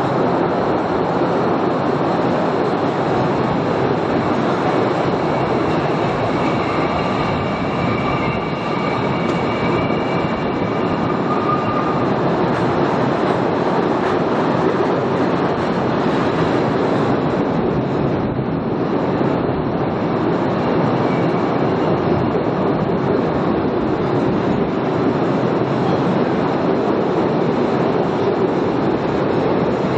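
Postojna Cave tourist train running along its track through the cave, a steady rolling rumble of wheels and cars. A faint high squeal comes in for a few seconds about a quarter of the way in.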